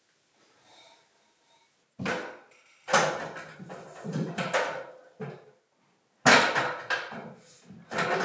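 Wooden framing timber being handled: four sudden heavy knocks, each followed by a second or so of clatter and scraping, with a faint rattle before them.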